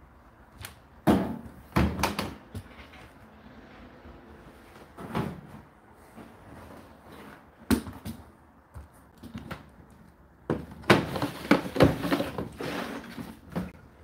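Hollow plastic knocks and clunks from a condenser tumble dryer being handled: single clunks from the door being swung open, then near the end a quick run of knocks and rattles as the plastic condensed-water container is pulled out of its drawer.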